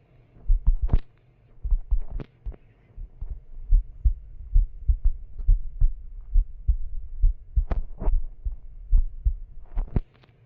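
Tools and packaging being handled by hand: irregular knocks and clicks, a few sharper ones, over low thumps close to the microphone.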